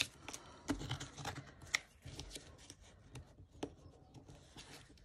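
Soft paper handling: cardstock circles and paper moved and pressed down by hand, light rustling with a few sharper ticks.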